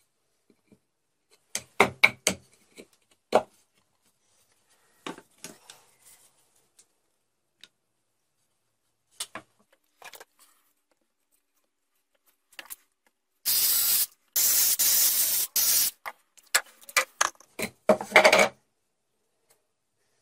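Scattered knocks and clicks of an MDF disc and a small clamp being handled and fitted onto a treadmill motor's shaft, then, past the middle, a run of short loud hissing noises mixed with knocks.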